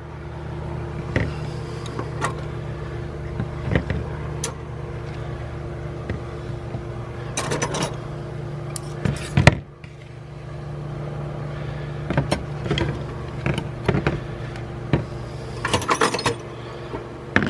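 Screwdrivers and other metal hand tools clicking and clinking as they are handled and set down, with scattered sharp knocks and small clusters of them around the middle and near the end, over a steady low hum.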